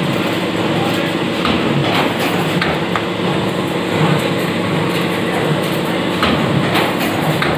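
Automatic CNC stirrup bender running, a steady motor hum with a few sharp knocks as its bending head feeds steel rebar and bends it into stirrups.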